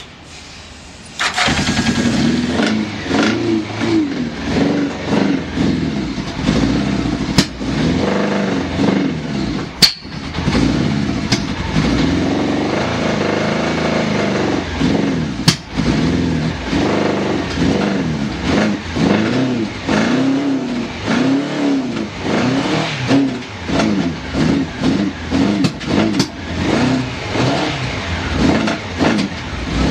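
Honda CBX750F Bold'or's inline-four engine started on the electric starter about a second in, catching at once, then running and revved up and down again and again with throttle blips. A few sharp clicks can be heard over it.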